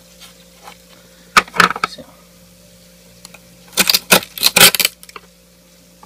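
Plastic ice scraper scraping and knocking against built-up frost and plastic ice-cube trays in a mini-fridge freezer compartment. There is a short bout of scratchy strokes about a second and a half in, and a louder rasping cluster around four seconds in.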